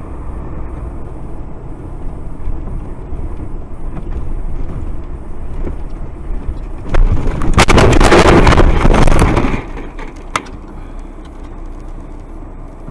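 Car running on a snowy road with steady tyre and engine noise, then about seven seconds in a loud collision with a truck: a crash followed by a couple of seconds of crunching and scraping, and a few loose knocks afterwards.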